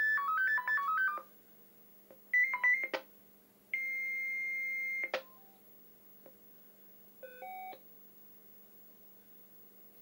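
Ericsson C702 mobile radio's loudspeaker sounding CCIR selective-call tones. A rapid run of short stepped beeps comes first, then a shorter burst of beeps, then one steady tone held about a second and a half, and two brief beeps near the end: the radio receiving a selective call and alerting to it.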